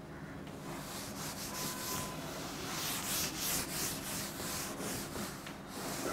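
Cloth wiping chalk off a chalkboard: a steady run of quick back-and-forth rubbing strokes, each a short hissing swish, starting about half a second in.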